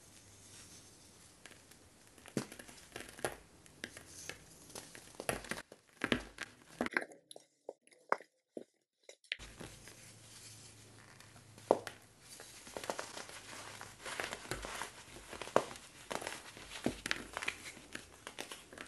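Dried, moulded baking soda block squeezed and crushed by hand, crumbling with many dry, sharp crunches and crackles. There is a short near-silent pause in the middle, then the crunching resumes.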